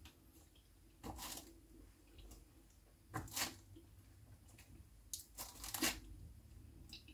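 Four faint, short scrapes spaced a second or two apart, as dates are worked in a frying pan with a thin utensil.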